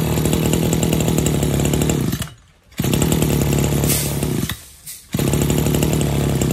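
Maruyama BC20 brush cutter's 20 cc two-stroke engine revved hard three times, each time held at a steady high speed for about two seconds, then dropping back to a quiet idle in between.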